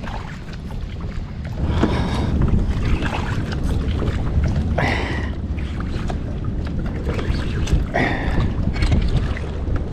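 Wind buffeting the microphone on a kayak out on open water, a steady low rumble that picks up about two seconds in. Over it come a few short splashes of water.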